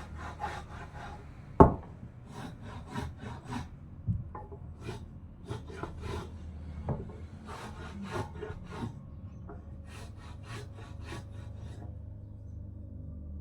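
A hand tool scraping back and forth on wood in short runs of quick strokes, with one sharp wooden knock, the loudest sound, about a second and a half in. The strokes stop near the end.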